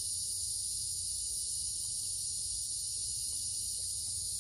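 Steady, unbroken high-pitched chorus of insects in woodland at dusk, with a low rumble underneath.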